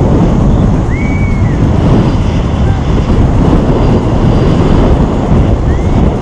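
Loud, steady wind rush over the microphone of a camera carried by a paraglider in flight.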